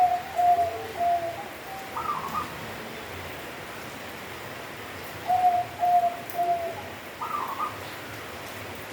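Zebra dove (perkutut) of the local type cooing. It gives two song phrases about five seconds apart, each a run of short low coos ending in a higher rolling note.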